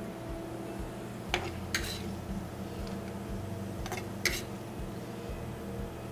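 A metal spoon clinking against a stainless-steel sauté pan as chorizo-and-nopal filling is scooped out: two pairs of short, sharp clinks, about a second and a half in and again near four seconds in. A steady mechanical hum runs underneath.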